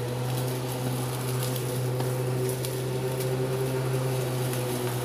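Lawnmower motor running steadily at a constant pitch while it cuts grass.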